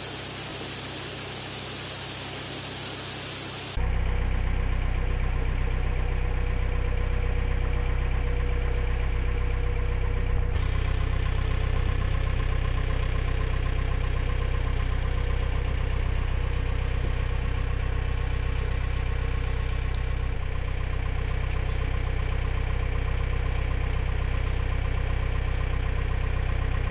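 A steady, even hiss for about the first four seconds, then a narrowboat's diesel engine running steadily while cruising: a low, even drone.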